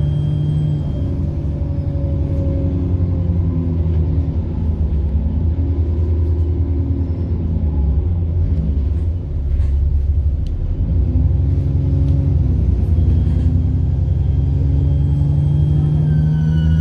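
Diesel bus engine pulling under way, its pitch rising and falling through the gears, with a high turbocharger whine that climbs near the start and again toward the end.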